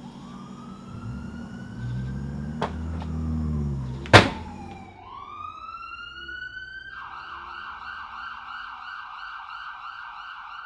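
Police siren winding up and wailing, with a low rumble swelling under it and a single loud bang about four seconds in. After the bang the siren winds up again and switches to a fast warbling yelp about seven seconds in.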